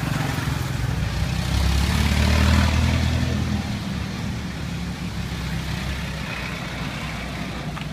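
A motor vehicle's engine rumbles past on the street, swelling about two seconds in and fading away over a steady low traffic hum.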